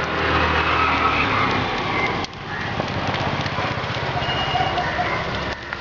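A woven hand fan waved briskly over a charcoal brazier, making a steady rush of air. It cuts off abruptly about two seconds in and resumes at once.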